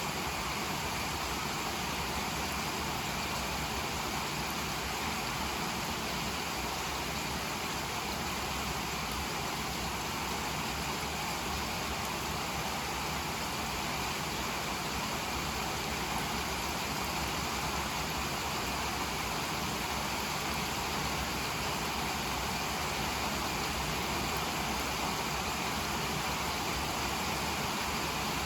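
Steady rain falling, an even hiss without any change in level.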